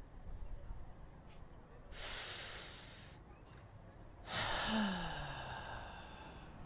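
A person sighing: a short breathy exhale about two seconds in, then a longer sigh about four seconds in whose voice drops in pitch as it trails off.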